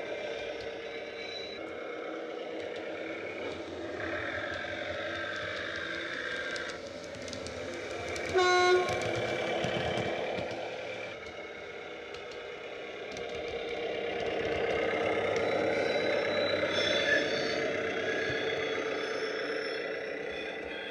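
DCC sound decoder in a model GWR parcels railcar playing a 1930s German railcar engine sound through the model's small speaker, the running engine swelling and fading as the model goes by. One short horn toot sounds about eight and a half seconds in.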